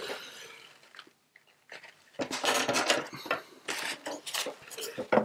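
A crumpled paper tissue rubbing and rustling across watercolour paper in a few scrubbing passes, lifting paint to clean the dirty sheet.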